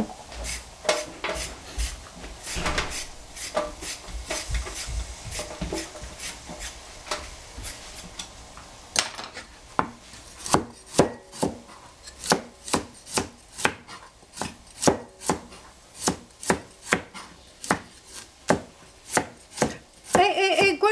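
Kitchen knife chopping vegetables on a cutting board, each stroke a sharp knock. The strokes come unevenly at first, then settle about halfway into a steady rhythm of roughly two a second.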